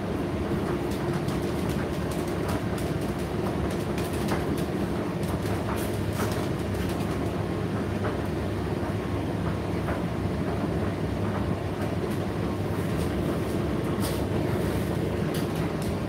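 Indesit IDC8T3 8 kg condenser tumble dryer running mid-cycle: a steady motor and drum hum with a low rumble, dotted with light clicks.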